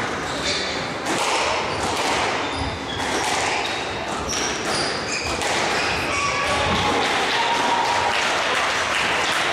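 Squash rally: the ball is struck by rackets and knocks off the court walls several times, with shoes squeaking on the wooden court floor.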